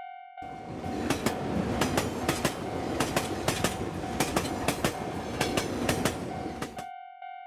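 A train passing over a railroad crossing, its wheels clacking rhythmically over the rail joints. It starts abruptly about half a second in and cuts off just before the end. The Japanese level-crossing alarm keeps ringing underneath, about two strikes a second.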